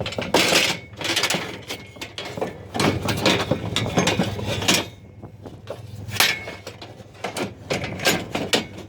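Metal bed frames clanking and rattling as they are handled, a string of irregular knocks and scrapes with short metallic rings.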